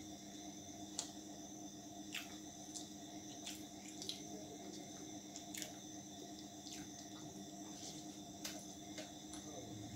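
A person eating roti and chicken curry by hand from a steel plate: faint, irregular wet clicks and smacks of chewing and of fingers tearing roti, about one a second, over a steady background hum.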